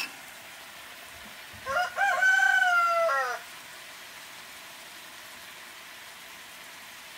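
A rooster crowing once, starting a little under two seconds in: a short rising note, then one long held note that drops away at the end.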